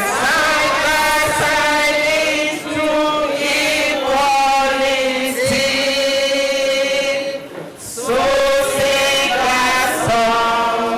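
A group of women singing together from programme booklets, holding long notes, with a brief break about seven and a half seconds in.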